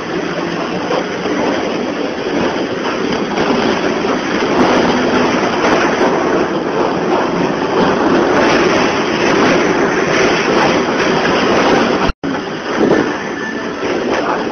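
Loud, steady noise inside a truck, cutting out for an instant about twelve seconds in.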